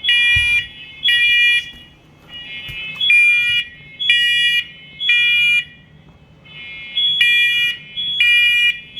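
Interconnected First Alert smoke alarms sounding together in the temporal-three fire-alarm pattern: loud, high-pitched half-second beeps in groups of three, each group followed by a pause. The pattern marks the units' smoke/fire evacuation signal.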